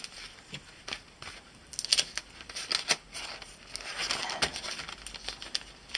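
Clear plastic cellophane bag crinkling and rustling as a card is handled and slipped into it, with scattered small clicks. The rustling is sparse at first and gets busier from about two seconds in.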